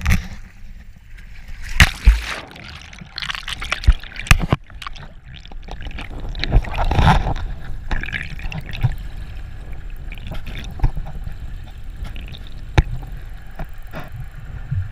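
Water splashing and gurgling around a camera as it goes under, then a muffled underwater wash with a steady low rumble and a few sharp clicks or knocks.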